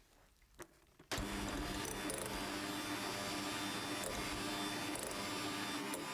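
Electric hand mixer switched on about a second in, then running steadily at a constant speed with a low hum, its beaters working egg yolk mixture into whipped egg whites to make sponge cake batter.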